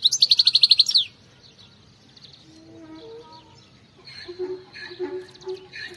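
European goldfinch singing: a loud, rapid trill of about a dozen high notes in the first second, then, after a pause, a run of varied twittering song from about four seconds in.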